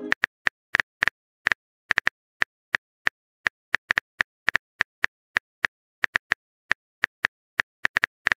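Smartphone keyboard tap sounds: a run of short, sharp clicks at an uneven pace of about three to four a second, as a text message is typed out.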